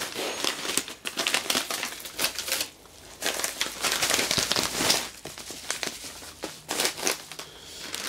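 A padded mailer envelope and the plastic bags inside it crinkling and rustling as they are handled and opened, in several bursts with short pauses between.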